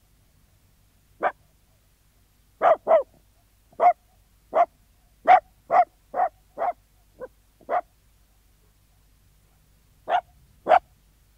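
Sealyham terrier barking: a run of about eleven short barks at irregular spacing, then a pause of about two seconds and two more barks near the end.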